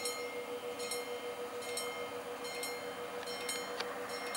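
Level-crossing warning bell ringing in repeated single dings, roughly one a second, over a steady hum while the barrier arms lower: the crossing is closing for an approaching train.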